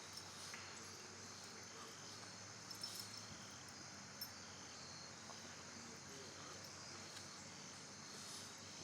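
Faint crickets chirping steadily, with a few small clicks about three and four seconds in.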